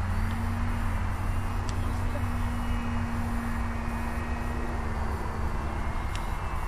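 Radio-controlled model airplane flying overhead: its motor and propeller give a thin steady drone that rises slightly at the start and fades away after about five seconds, over a constant low rumble.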